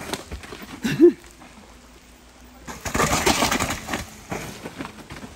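A short, low, hooting cry about a second in, rising and falling in pitch. Then about a second of rough scraping noise from mountain bike tyres sliding on the wet dirt and leaves of a steep trail.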